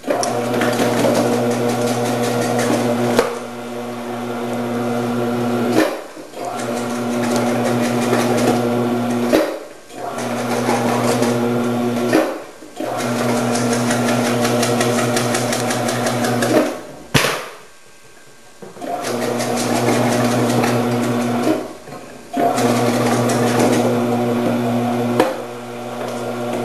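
Commercial vegetable cutting machine running with a steady motor hum and the rattle of its disc slicing leafy greens. The sound stops briefly about every three seconds, with a click each time, while more vegetables are fed in. A longer pause comes a little past halfway.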